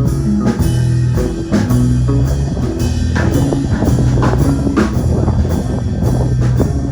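Live band playing an instrumental passage between sung lines: guitar, bass and drum kit with a steady beat.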